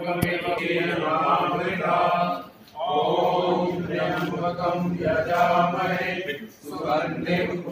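A group of men chanting a Hindu prayer together in long phrases, pausing briefly for breath twice.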